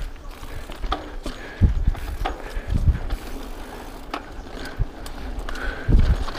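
Rockrider XC50 mountain bike rolling over a bumpy dirt singletrack: the rear hub's freewheel ratcheting while coasting, with scattered clicks and knocks from the bike rattling over bumps and a few heavy low thumps.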